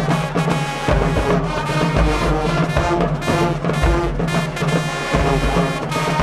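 High school marching band playing: brass holding pitched notes over the drumline, with heavy bass drum hits about once a second.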